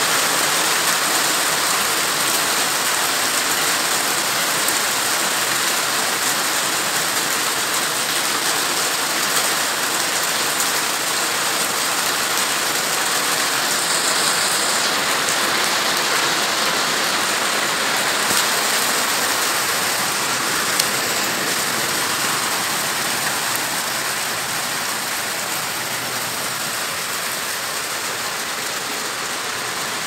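Heavy rain falling steadily in a continuous hiss on a lawn and hard surfaces, getting slightly quieter over the last several seconds.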